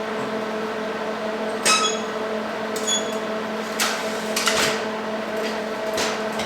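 Steel frame of a DeWalt DWX726 rolling miter saw stand clanking as it is raised upright: a ringing metal clank about a second and a half in, a smaller ringing knock about a second later, then several lighter knocks. A steady low hum runs underneath.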